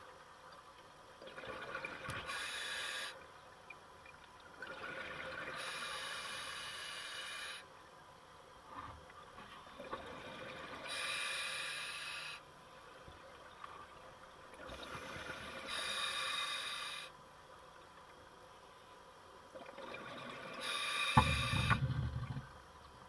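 A scuba diver breathing underwater through a regulator: hissing breaths and bubbling exhalations come in spells every four to five seconds. A louder, low rumble of bubbles comes near the end.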